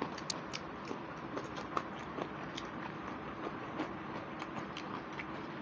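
Two people eating rice and curry with their fingers: scattered soft clicks and smacks of chewing and lips close to the microphone, over a steady low hiss.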